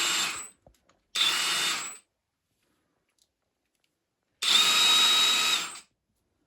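Hilmann HL 4170 brushless impact wrench spinning free with no load, a steady high whine in three trigger pulls: one ending about half a second in, a short one a little after a second, and a longer one of about a second and a half in the middle.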